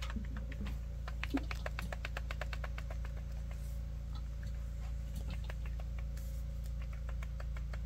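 Faint, quick clicking and rattling of a Live Free Armory Apollo 11 pistol's slide being worked back and forth on its frame, the sign of a loose slide-to-frame fit. The clicks come thickest about one and a half to three seconds in, then scatter.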